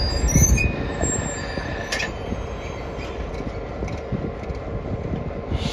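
Diesel locomotive running with a steady low rumble, loudest about half a second in, with faint high squeals and a single clank about two seconds in.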